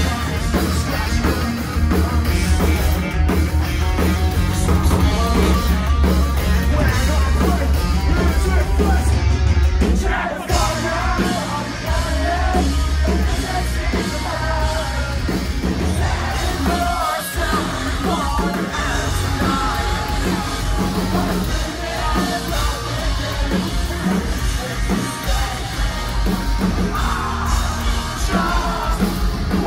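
Live emo metal band playing loud, with sung and yelled vocals over guitars and drums, heard from inside the crowd. About ten seconds in the sound drops suddenly and changes to another passage of the music.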